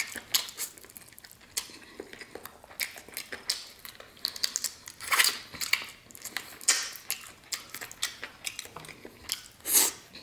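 Close-miked eating: a man chewing roasted chicken and pulling the meat off the bone with his fingers, heard as irregular sharp smacks and clicks of mouth and hands.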